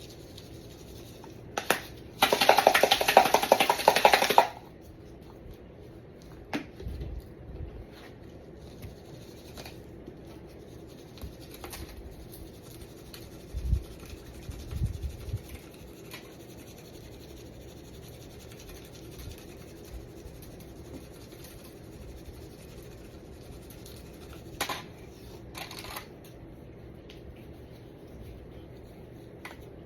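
A shaker of lemon pepper seasoning rattles hard for about two seconds, starting a couple of seconds in, as the seasoning is shaken out. After it come only a few soft knocks and taps.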